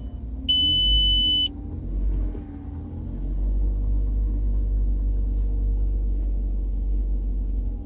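A high electronic beep lasting about a second, starting about half a second in, over a car engine idling with a steady low rumble.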